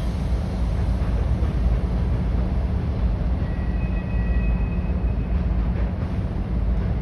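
Freight train rolling by with a steady low rumble, and a faint high-pitched squeal lasting about two seconds in the middle.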